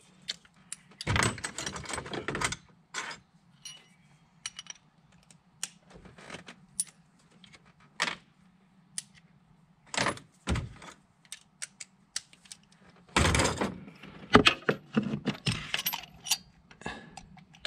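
Metal hand tools clinking and rattling in scattered clicks and short clusters: a ratchet being fitted with a longer socket extension to reach a spark plug.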